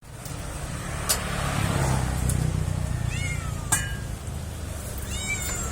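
A stray cat meowing twice, in short high-pitched calls about three seconds in and near the end, over a steady low rumble, with a few sharp clicks.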